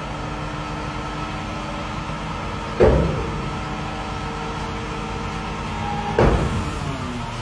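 A half-pipe tipper semi-trailer raising its dump body on its hydraulic ram: a steady mechanical running with a constant whine from the truck's tipping drive. Two sharp clunks come about three and six seconds in.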